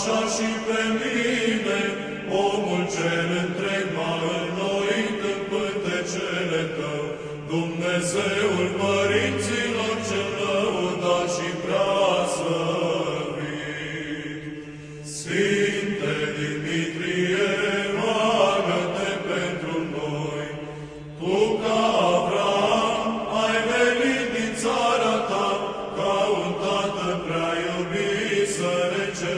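Orthodox church chant: voices singing a slow, melismatic melody over a steady held drone, with brief pauses between phrases about halfway through and again a few seconds later.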